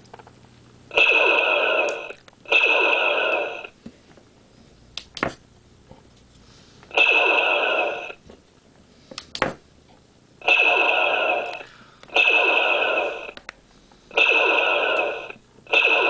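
Digitised E-11 blaster sound effect fired seven times from a prop blaster's sound board, each shot a loud burst of about a second that fades out at its end. A couple of sharp clicks fall between shots.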